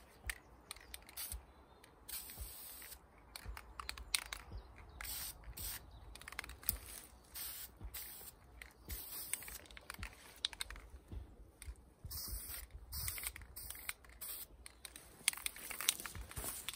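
Aerosol spray-paint can hissing in many short bursts as paint is sprayed onto a ghillie suit.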